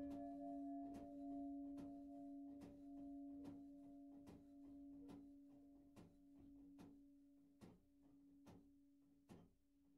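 A church bell's bronze hum slowly dying away after its last strike as the bell swings on without striking. Faint, regular knocks a little less than a second apart keep time with the swing.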